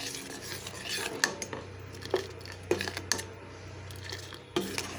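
A spoon clinking against a pan as the masala tea is stirred: several separate clinks scattered through, over a low steady hum.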